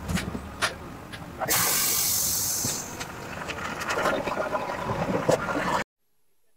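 Road vehicle on the move, with a few sharp knocks early on. About a second and a half in comes a sudden loud hiss that eases after about a second into steady travel noise. The sound cuts off abruptly near the end.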